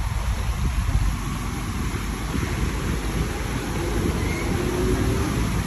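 Engine and road noise of a moving vehicle heard from on board, with a low rumble of wind on the microphone.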